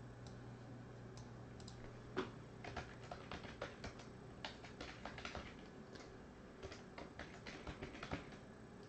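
Typing on a computer keyboard: quick, irregular, faint key clicks that start about two seconds in and go on in short runs.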